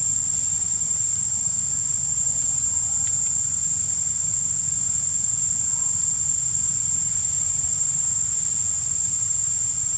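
Steady, high-pitched insect drone, one unbroken tone, over a low, steady rumble.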